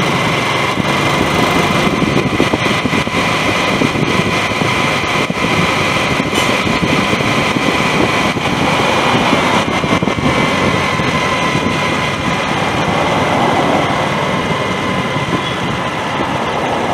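Yamaha YZF-R15 V2's single-cylinder engine running steadily at low road speed, heard with road and wind noise while riding.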